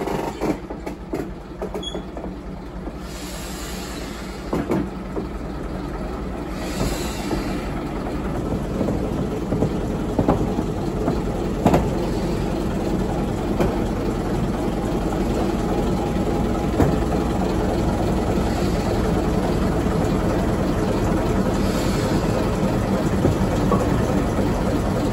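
Fowler diesel shunting locomotive's engine running steadily, growing louder as it draws up to a brake van, with a few sharp clanks.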